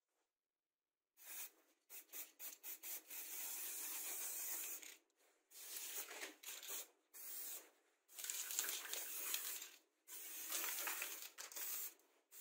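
Aerosol spray paint can spraying in a series of hissing bursts: a few quick spurts, then several longer bursts of two to three seconds each.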